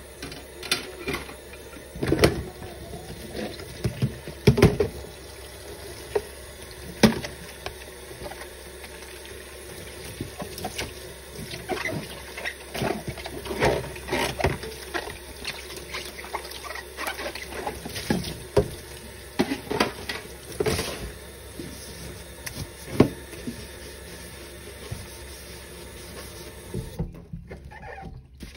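Kitchen tap running into a stainless steel sink during hand dishwashing, with irregular knocks and clatters of plastic containers and dishes being handled and water splashing. The running water cuts out about a second before the end.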